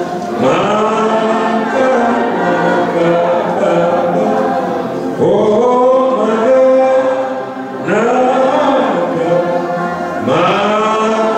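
Choir singing a hymn in several voices, phrase by phrase, with short breaks between the phrases.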